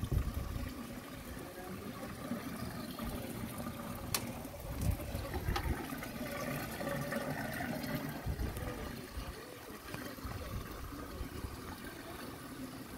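Water running steadily along a wooden sluice trough, with two sharp clicks about four and five and a half seconds in.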